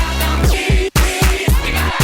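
Background music with a steady beat and heavy bass, breaking off for an instant just before a second in.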